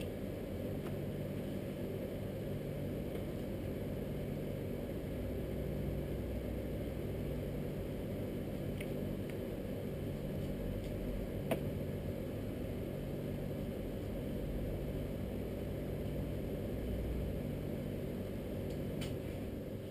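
A steady low hum, with a few light clicks of a knife against a wooden cutting board as beef is trimmed; the sharpest click comes about halfway through.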